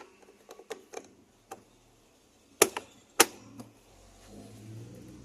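A few light clicks and taps, then two sharp, louder knocks about two and a half and three seconds in, with a couple of smaller clicks after them.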